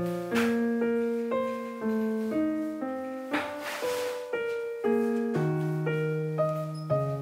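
Background piano music: a light melody of separate struck notes over a slower bass line.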